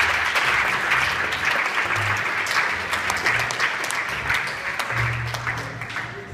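A room of onlookers applauding, their clapping thinning out and fading away near the end, over slow foxtrot music with a low, steady bass line.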